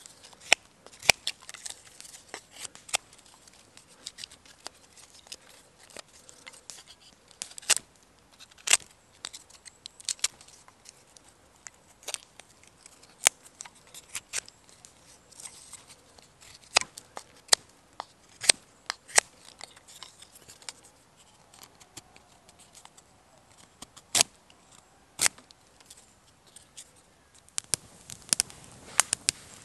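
Knife carving a split wooden stick, cutting shavings with sharp, irregular strokes a second or two apart. Near the end a denser run of quick crackles starts.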